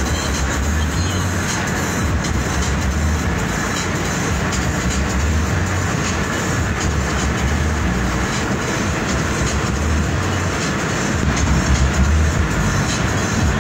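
Steady road and engine rumble of a moving vehicle, heard from inside it, with an uneven low throb.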